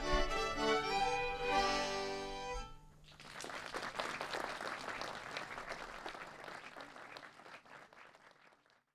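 Swedish folk fiddlers' ensemble playing the last bars of a tune, which ends about two and a half seconds in, followed by audience applause that fades away.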